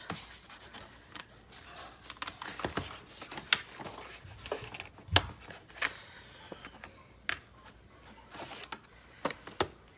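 Scissors snipping out holes in cardboard: an irregular run of short, sharp snips and crisp rustles, the loudest a little after three and a half seconds in and again about five seconds in.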